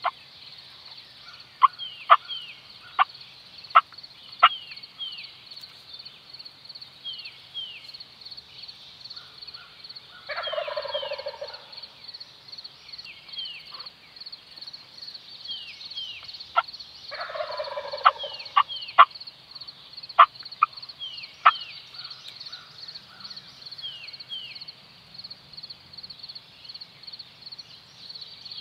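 Wild turkey gobbler gobbling twice, about ten seconds in and again about seventeen seconds in, each a rattling call of about a second and a half. Scattered sharp short notes and a steady high-pitched pulsing chorus run beneath.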